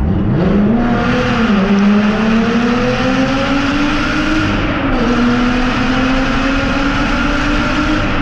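Sports car with an aftermarket exhaust accelerating hard in a tunnel, a 'tunnel rip'. The engine note rises sharply, keeps climbing, dips at an upshift about five seconds in, then climbs again.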